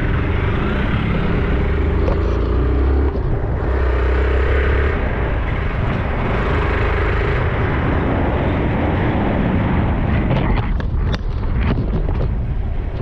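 Motorcycle running at a steady pace on the road, its low engine note under wind and road noise, with a few clattering knocks near the end.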